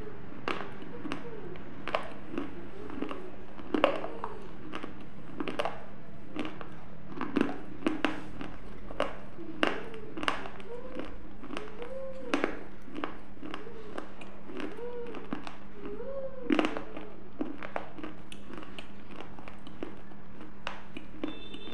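Close-miked mouth sounds: irregular lip smacks and clicks mixed with short hummed tones that rise and fall, over a steady low electrical hum.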